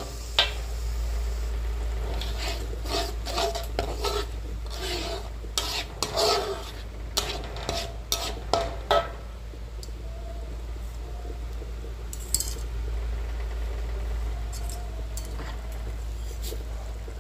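Metal spatula scraping and stirring blended chili spice paste as it sautés in a wok, with a light sizzle of the paste frying. The scrapes come thick and fast for the first nine seconds or so, then thin out to a few.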